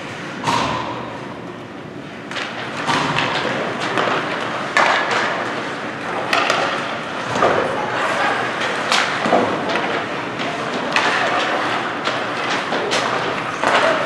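Ice hockey play: repeated sharp knocks and thuds of sticks, puck and bodies against the boards, over skates scraping the ice, with scattered shouts.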